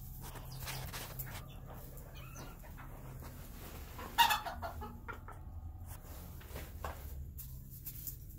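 Black Modern Game bantam chickens clucking softly, with one loud, short call about four seconds in.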